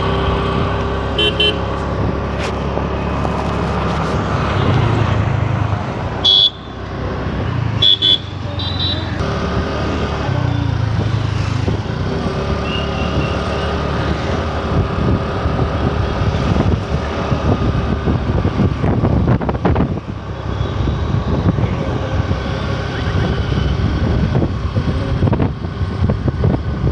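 Road noise, engine and wind from a motor scooter riding through town traffic, a steady rumble throughout. Short high horn beeps come about a second in and again around six and eight seconds in.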